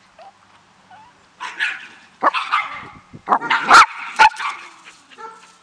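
Small dogs barking: a quick run of sharp barks starting about a second and a half in, loudest a little past the middle, then stopping.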